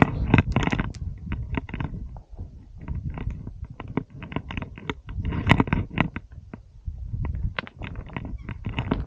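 Footsteps crunching and scraping on loose stones and scree during a steep descent, with many small clicks and knocks of stones shifting and rolling, over a low rumble that swells twice.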